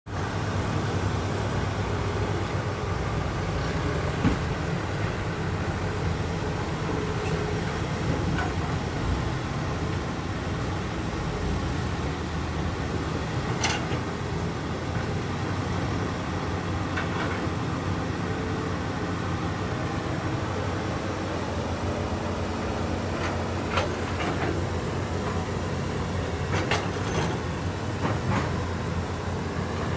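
Heavy diesel engine running steadily, with occasional sharp clanks and knocks.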